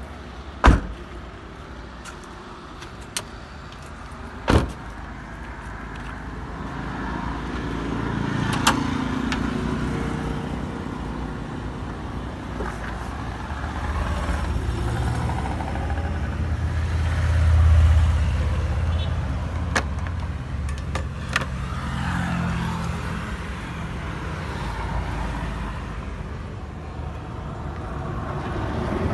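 Handling noise around a parked car: two sharp knocks in the first five seconds and a few lighter clicks later, over a low vehicle rumble that swells and fades around the middle.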